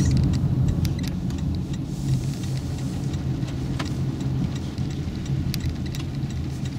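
Cabin noise of a Toyota Prius (50 series) moving slowly on a wet road: a steady low rumble of tyres and drivetrain, with scattered faint ticks.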